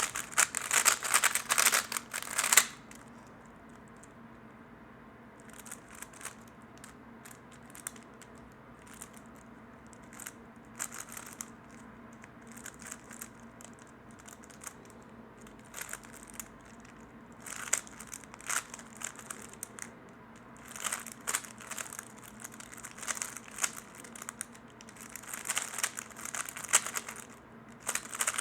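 A 3x3 Rubik's cube being turned by hand in a slow warm-up solve: rapid clattering of layer turns in spurts, with short pauses between groups of moves.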